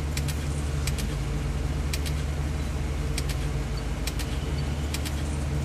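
Tour bus engine idling, a steady low hum heard from inside the bus, with sharp clicks scattered through it, some in quick pairs.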